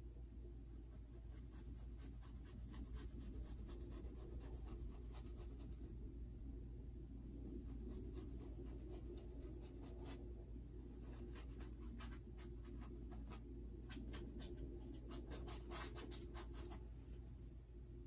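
Paintbrush scratching and dabbing acrylic paint onto stretched canvas, faint, in quick runs of short strokes that are busiest about ten seconds in and again a few seconds before the end, over a low steady hum.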